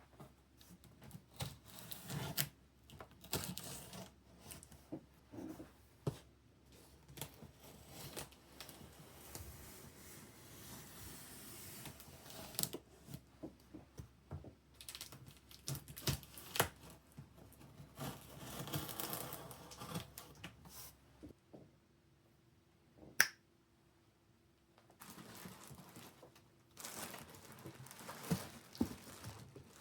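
Handling noises from preparing a PC case: irregular clicks and taps of parts being handled, with stretches of rustling and tearing and one sharp click about two-thirds of the way in.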